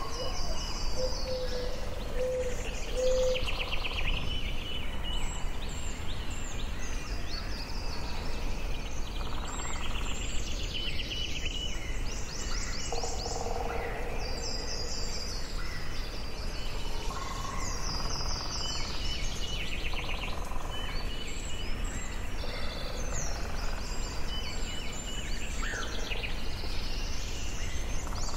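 Forest ambience: several birds sing at once, overlapping high trills and chirping phrases, with a few lower repeated whistled notes, over a steady low background rumble.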